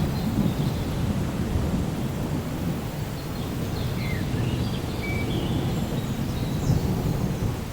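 Distant thunder rumbling low and rolling over steady rain, with a few faint high bird chirps.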